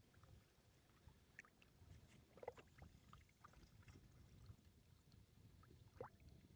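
Near silence: faint outdoor background with a few small, scattered clicks and ticks, the most distinct about two and a half seconds in and again near the end.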